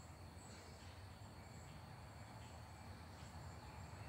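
Faint outdoor ambience: insects chirping steadily at a high, thin pitch over a low background rumble.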